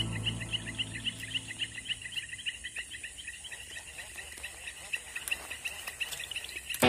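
Rapid, steady chirping from a small calling animal, about six high chirps a second. Background music fades out in the first couple of seconds and starts again right at the end.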